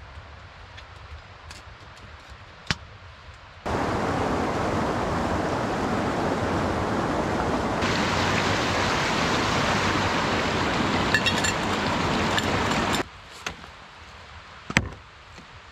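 A small stream's flowing water, a steady rush that cuts in a few seconds in and stops abruptly after about nine seconds. Near the end, one sharp hatchet chop into wood.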